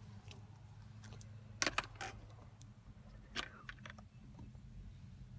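A Casio G-Shock resin wristwatch being handled and knocked against the hard plastic of the drone controllers: a few light clicks and rattles, the clearest about one and a half seconds in, at two seconds and at three and a half seconds.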